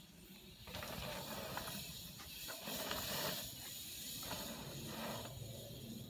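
Bike tyres rolling fast over packed dirt: a hissing rush that starts about a second in, swells in the middle and fades near the end, with a few sharp clicks.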